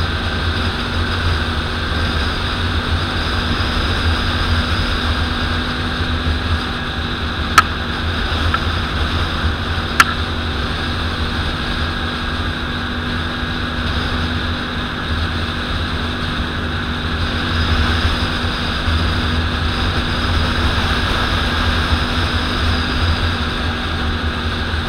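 ATV engine running steadily under way, a constant low drone with no change in pace. Two sharp knocks cut through it, about seven and a half seconds in and again about ten seconds in.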